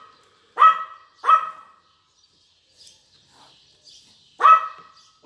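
A dog barking: two barks close together about half a second and a second in, then one more bark near the end.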